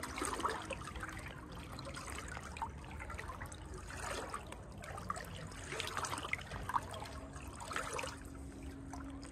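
Waist-deep floodwater sloshing and splashing as someone wades through it, in uneven swells every couple of seconds over a steady trickle of moving water.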